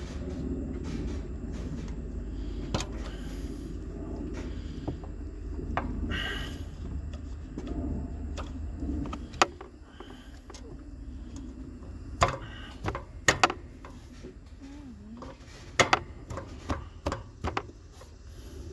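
Scattered sharp clicks and knocks of hand repair work on a mower's steering, mostly in the second half, some in quick clusters, over a low steady rumble.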